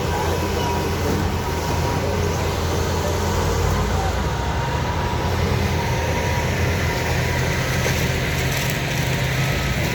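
Heavy diesel engine of earth-moving machinery running steadily at a constant speed.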